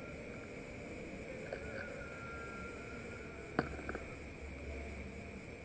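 Quiet night ambience: a steady, high insect drone, like crickets, with a sharp click about three and a half seconds in and a softer click just after.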